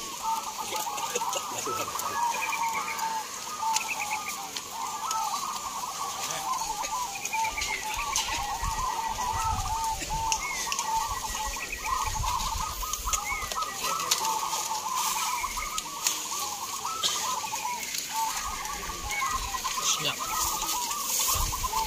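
Many caged zebra doves (perkutut) cooing at once, their rolling coos overlapping without a break: a chorus of males in full song.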